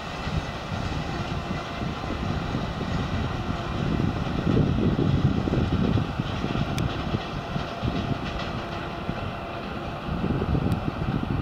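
Container freight train's wagons rumbling and rattling over the rails as the tail of the train moves away, swelling in loudness about halfway through and again near the end.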